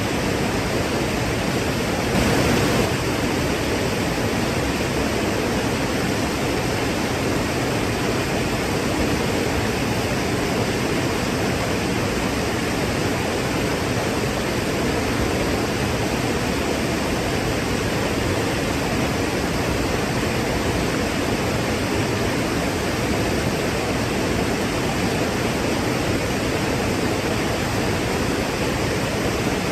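Waterfall: a steady rush of falling water, briefly louder about two seconds in.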